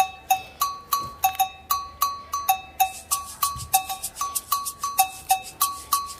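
Background music: a repeating bell-like percussion pattern, two alternating notes struck about three times a second.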